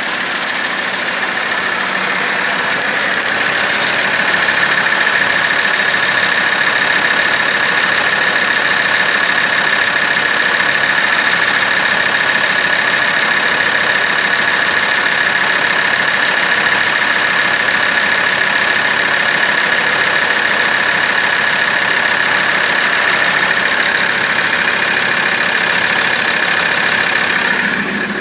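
2013 Ford Ranger's 3.2-litre five-cylinder turbo-diesel idling steadily, with a steady high whine over it.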